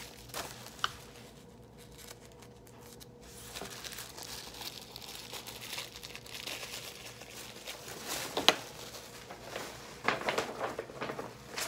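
Tissue paper and its packaging crinkling and rustling as they are handled and opened, with one sharp crackle about eight and a half seconds in.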